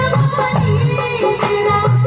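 Loud Indian-style song: a singing voice over a steady drum beat with heavy bass.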